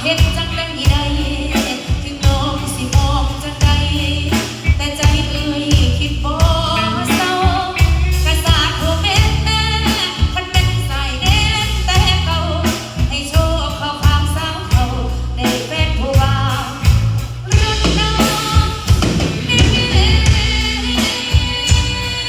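Live band playing a song: a singer's voice over drum kit, bass and guitar with a steady beat.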